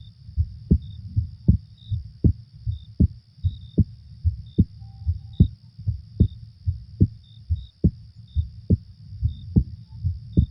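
Recorded human heartbeat: steady deep thumps a little more than one a second, each with a weaker second beat. Under it runs a night-sounds ambience track with a steady high hiss and short high chirps now and then.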